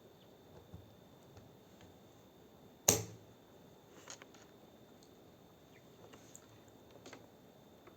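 One sharp click about three seconds in, with a few faint light ticks later, over quiet room tone: small tools being handled on a workbench.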